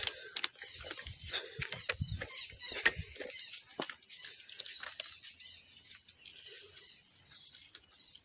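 Footsteps crunching on railway track ballast for the first four or five seconds, then stopping, over a steady high-pitched drone of insects.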